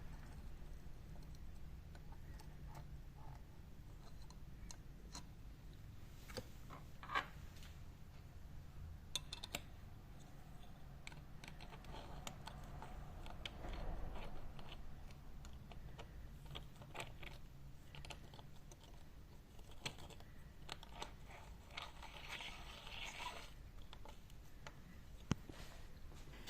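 Small metal bicycle hub parts being handled and worked on: irregular light clicks and taps with some rubbing.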